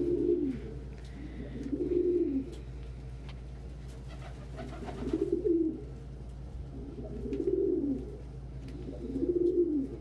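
Domestic pigeon cooing: about five low coos, roughly two seconds apart, each a rising-then-falling note, as one bird warns another off a nest-box spot.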